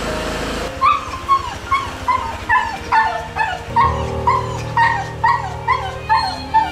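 Pit bull whining in a run of short high yelps, about two or three a second, each dipping in pitch. It is crying at being left behind by its owner.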